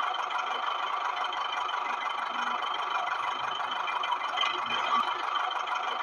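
Small electric motor and gearbox of a homemade toy tractor whirring steadily with a light rattle as it drives.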